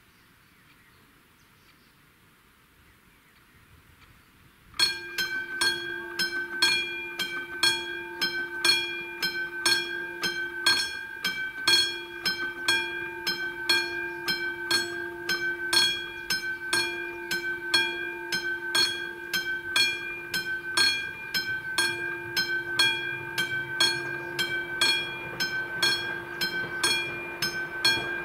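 Level-crossing warning bell of the classic striker type (AŽD) starting suddenly about five seconds in and then ringing on in evenly spaced, rapid strikes: the crossing has been triggered by an approaching train.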